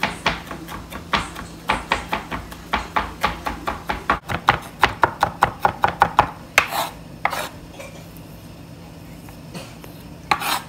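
Chef's knife mincing garlic on a wooden cutting board: a fast run of knife strokes, about three to five a second, then a pause of a few seconds before the chopping starts again near the end.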